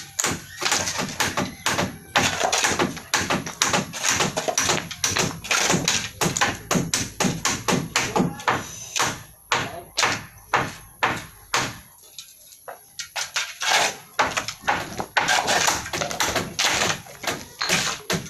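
Rapid, irregular knocking and tapping of hand-worked construction labour, several strikes a second, with a brief lull about two-thirds of the way through.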